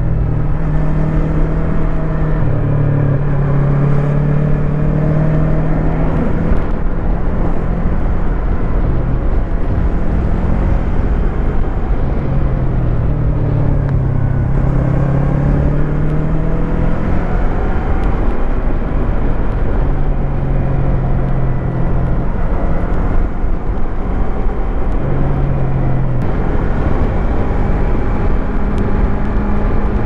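Yamaha MT-25's 250 cc parallel-twin engine running while the bike is ridden, its note rising and falling several times with throttle and gear changes, over a steady rushing noise.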